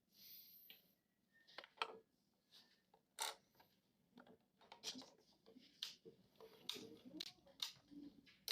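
Unboxing handling sounds: scattered sharp clicks and taps of plastic and packaging being handled, with a soft rustle about a second's worth at the start.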